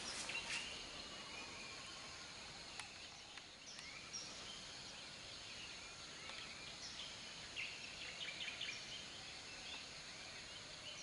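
Faint outdoor ambience: scattered short bird chirps over a steady high insect drone.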